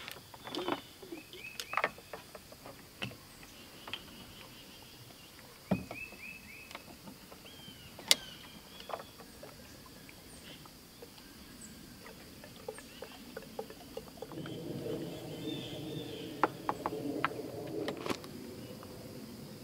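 Clicks and knocks of plastic caps and a fuel can being handled against a chainsaw during refuelling, with a couple of short rattles from caps being unscrewed. Near the end comes a longer stretch of liquid pouring into the saw's tank.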